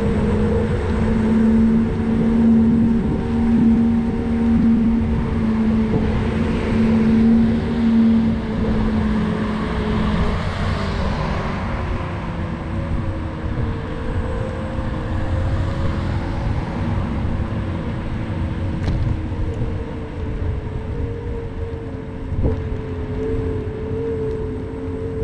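Ride noise from a vehicle moving along a paved bike path: low wind and road rumble on the microphone with a steady whine that drifts slightly in pitch, and a hiss that swells around ten seconds in.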